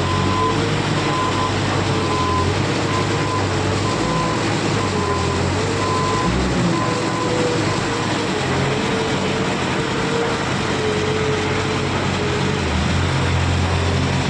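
JCB 155 skid steer loader's engine running steadily under a wavering whine, with a high alarm beeping on and off.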